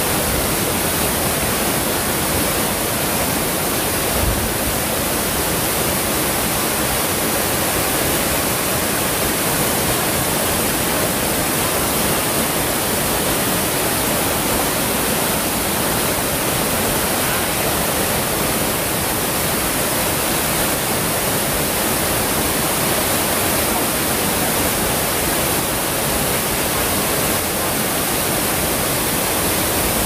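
Steady rush of a waterfall, an even roar of falling water with no change in level.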